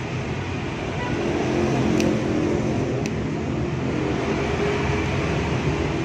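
Steady rushing hum of a fast-running electric fan, with two light clicks about two and three seconds in.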